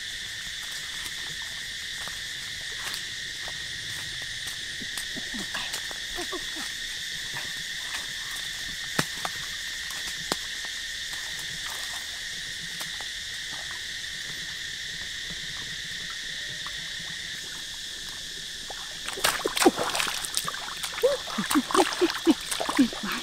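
Steady insect chorus, an unbroken high buzz, with scattered faint clicks. From about three-quarters of the way in, a busy run of sharp knocks and clicks from handling close by.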